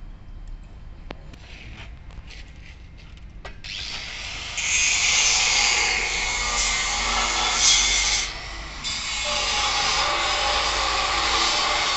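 Angle grinder grinding the mild-steel frame of a cabana: a loud, harsh hiss that starts about four seconds in, drops out for a moment about two-thirds of the way through, then resumes. Before it, a few faint clicks.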